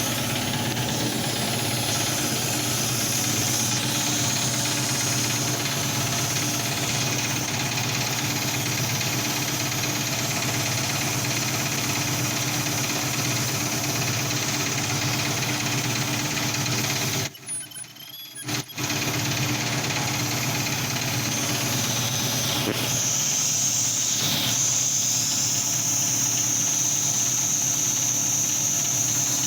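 Galileo TP ultrasonic tube welding machine running, a steady mechanical hum with hiss and a high whine that grows stronger in the later part. The sound drops out briefly a little past the middle.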